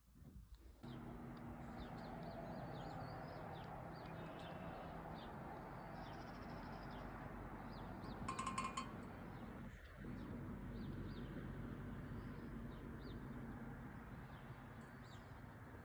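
Many short, high chirps coming from a fireplace over a steady rushing noise, with a brief louder sound a little past halfway.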